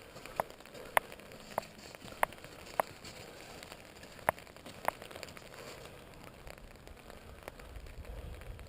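Steady light rain, with sharp single taps of large drops on an umbrella, about one every half second to second for the first five seconds, then only the soft patter of the rain.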